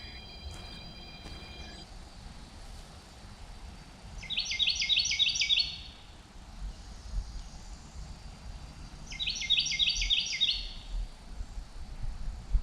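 Northern cardinal singing two phrases about five seconds apart, each a quick run of repeated down-slurred whistled notes about a second and a half long.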